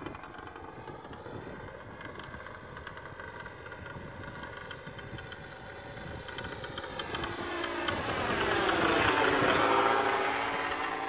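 Laser 80 diesel model engine running steadily in a Ben Buckle Falcon model plane in flight. It grows louder past the middle as the plane flies close overhead, and its pitch drops as it passes.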